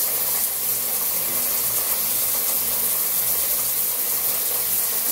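Lorenzetti Futura electric shower running: a steady spray of water from the shower head, with a faint low hum underneath. Only a small noise.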